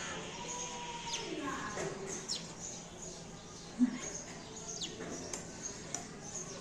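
Small birds chirping: several short high calls, each dropping quickly in pitch. A single short knock about four seconds in is the loudest sound.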